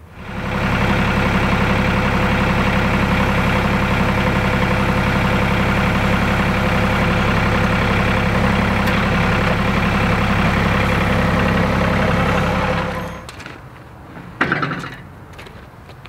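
Compact tractor's diesel engine running at a steady speed while the loader works. The engine sound drops away after about thirteen seconds, and a brief knock follows.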